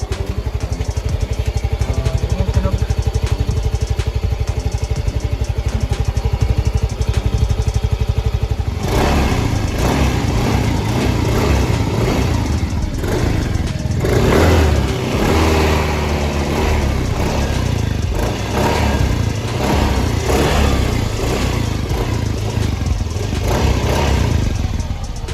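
Yamaha Mio Soul i 125 scooter's single-cylinder four-stroke engine running through its stock exhaust pipe: a steady idle, then revved up and down repeatedly from about nine seconds in.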